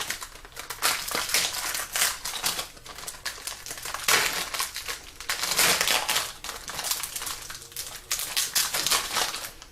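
Irregular crackling and crinkling as a car wiring harness is worked by hand: masking tape being pulled off the wires and plastic wire loom handled and cut.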